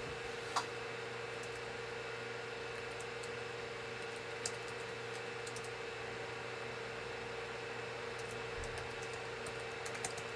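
Computer keyboard keys pressed a few times as a login and password are typed, giving scattered sharp clicks: one about half a second in, another midway, a short run near the end. Under them runs a steady electrical hum with a low tone.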